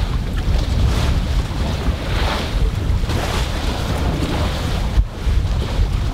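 Wind buffeting the microphone with a steady low rumble, while waves wash and splash against the sailing raft in several surges.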